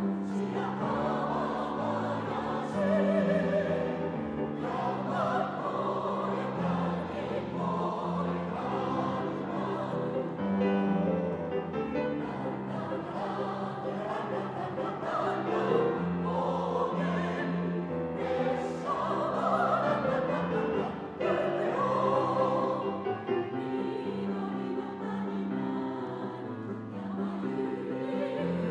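Mixed choir of women's and men's voices singing in parts, accompanied by a grand piano.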